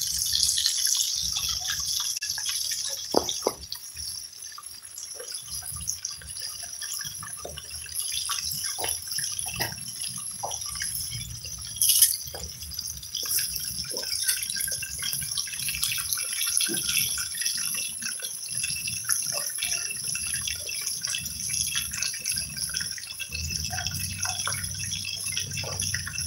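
Bluefish frying in shallow oil in a pot: a steady sizzle with scattered small pops and crackles, and one sharp pop about twelve seconds in.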